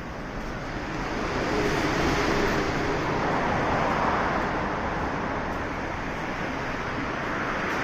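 Passing vehicle noise: a steady rush with no clear rhythm that swells about two seconds in, then eases slightly.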